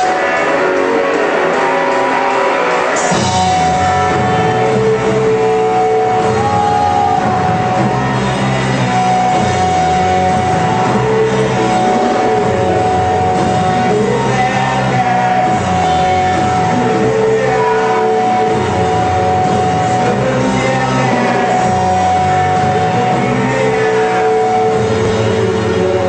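Live psychedelic art-rock band playing, with guitars, bass and drums, and a voice singing or shouting over it; the full band comes in about three seconds in.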